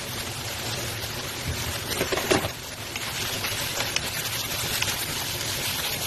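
Diced pork sizzling and steaming in an open frying pan, a steady hiss, with a spatula stirring through it. There is a single louder clunk about two seconds in.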